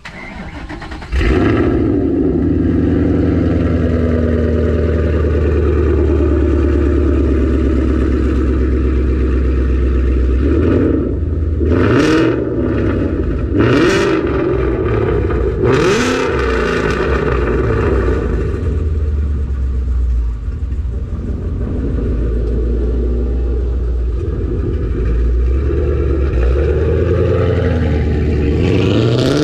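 Ford Coyote 5.0 V8 with long-tube headers, cat delete, off-road X-pipe and Roush axle-back exhaust starting up about a second in and settling into a loud idle. It is revved quickly a few times around the middle, and a rev begins near the end.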